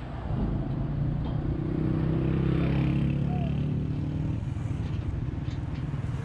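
An engine running, its steady drone swelling to its loudest about two to three seconds in and easing off after about four seconds.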